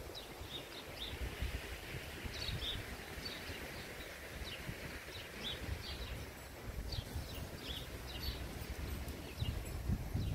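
Small birds chirping in short, high notes again and again over a steady low outdoor rumble.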